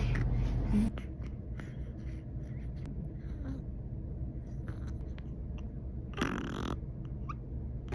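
Quiet handling noise and small clicks around a baby being burped, with one short vocal sound from the baby about six seconds in and a brief rising squeak near the end.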